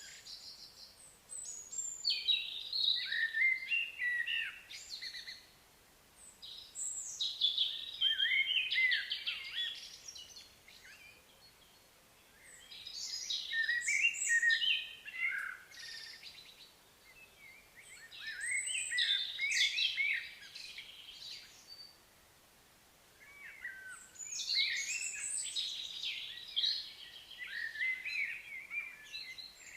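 A songbird singing in repeated phrases of quick chirps and warbling notes, each phrase about three seconds long with short pauses between them, about five phrases in all.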